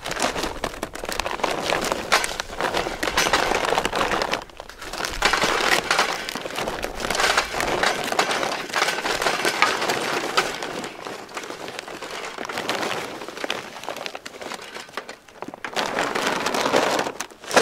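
Charcoal briquettes pouring from a paper bag into a rusty metal chimney starter: a dense, continuous clatter of briquettes tumbling onto each other and the steel, with the bag rustling and a few short pauses between pours.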